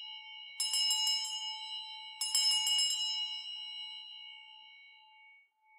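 Altar bells rung at the elevation of the consecrated host. Two rattling strikes come about a second and a half apart, and each rings on in a clear, bright tone that slowly fades.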